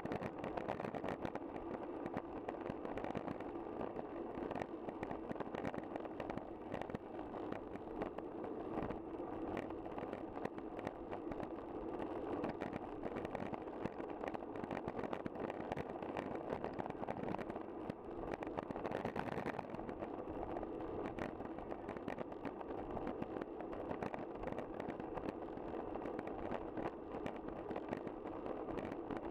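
Steady road noise from a bicycle riding along: a continuous tyre hum with a light, constant rattle over it.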